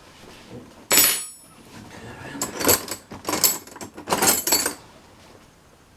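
Old metal hand tools clinking and clattering as they are handled and dropped among other tools: one sharp ringing clink about a second in, then a run of rattling clatters.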